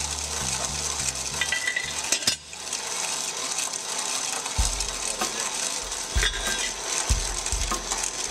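Lab stirred-ball mill grinding cacao nibs: the balls of grinding media rattle and clatter continuously as the agitator churns them through the nibs in the pot, with a brief drop about two and a half seconds in.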